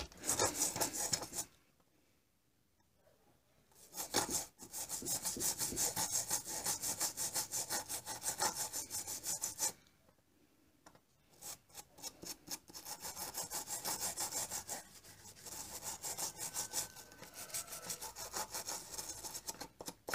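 Toothbrush bristles scrubbing the solder side of a car radio's circuit board in quick back-and-forth strokes, about four or five a second, cleaning the freshly soldered joints. The scrubbing pauses twice, after about a second and again about halfway through.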